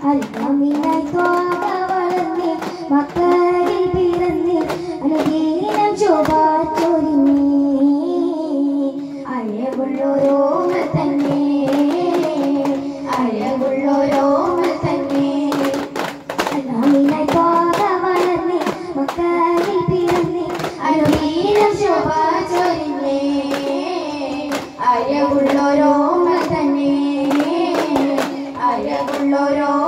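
Daff Muttu performance: young voices singing a melodic song together over daffs (hand-held frame drums) struck in a steady rhythm.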